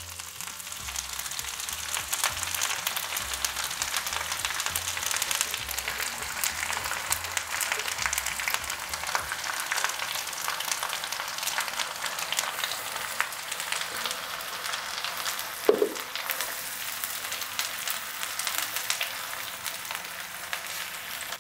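Onion paste frying in hot oil in a pan, sizzling and crackling steadily as a blended tomato puree is poured in and stirred with a silicone spatula. One brief sharp sound stands out about sixteen seconds in.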